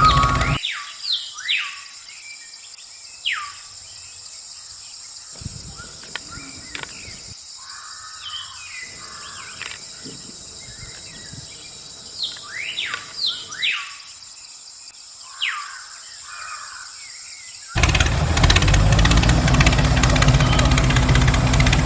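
Birds chirping outdoors: repeated short calls that slide down in pitch, over a steady high hiss. About eighteen seconds in, a loud steady rumbling noise starts suddenly.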